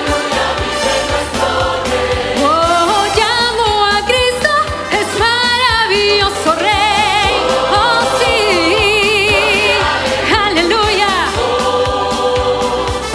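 Mixed choir singing sustained chords over music with a steady beat, with a female soloist singing a line with wide vibrato above it from a couple of seconds in until near the end.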